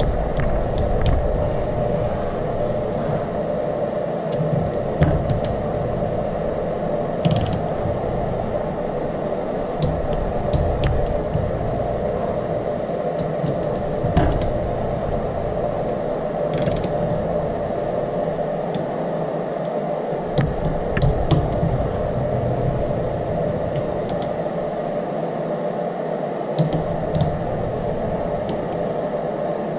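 Ratchet-head torque wrench ratcheting and clicking as the bolts of a cam phaser limiter are tightened to 14 ft-lb, with scattered sharp clicks and handling noise over a steady background hum.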